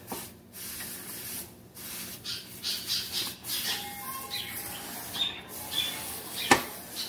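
Dry toasted pumpkin seeds rustling and scraping as they are handled, in irregular bursts. A single sharp knock comes about six and a half seconds in.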